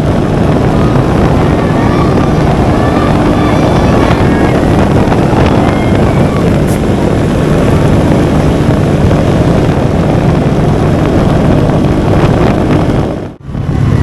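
Motorcycle riding at highway speed: heavy wind noise on the camera microphone over the steady drone of the engine. The sound drops out briefly just before the end.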